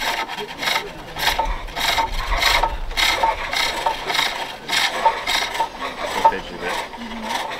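Hook tool cutting a wooden bowl blank on a pole lathe: a rasping shave with each stroke of the lathe, repeating about twice a second.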